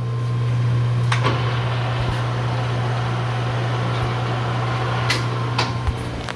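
Clausing Colchester 8000-series lathe running steadily with its spindle in a low gear at 80 RPM, giving a steady motor and gearbox hum. A few light clicks come about a second in and near the end.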